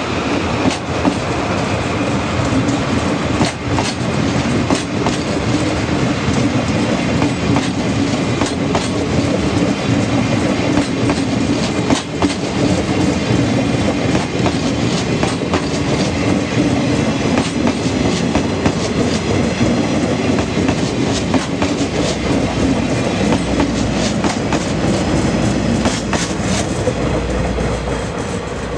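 Twilight Express sleeper coaches rolling past as the train pulls out, wheels clicking over the rail joints in a steady clickety-clack. It eases off a little near the end as the last car draws away.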